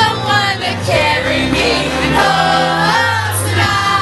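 Loud pop music with singing.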